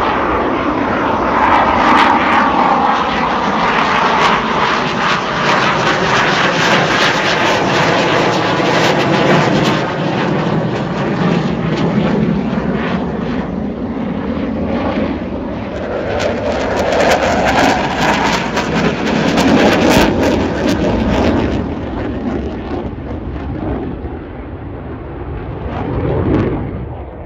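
Dassault Rafale fighter's twin Snecma M88 jet engines, loud and crackling as it flies overhead, with a sweeping, phasing whoosh as it passes. The noise swells twice, about two seconds in and again around twenty seconds, then fades toward the end.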